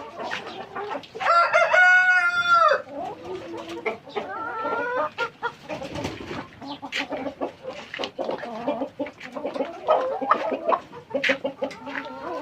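Rainbow Rooster chickens clucking, with a rooster crowing loud and long about a second in and a fainter, shorter call a few seconds later; short sharp clicks run through the clucking.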